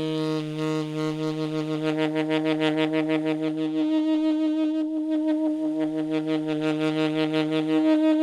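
Sustained synthesizer bass drone built from a sampled saxophone recording, holding one pitch with a fast, throbbing flutter. Its lowest octave layer drops out about four seconds in and comes back a second and a half later.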